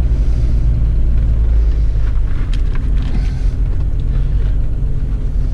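Off-road vehicle's engine and drivetrain running with a steady low rumble, heard from inside the cab, as it crawls up a rocky trail. A few short knocks and rattles come about two to three and a half seconds in, the kind made by the tyres and body going over rocks.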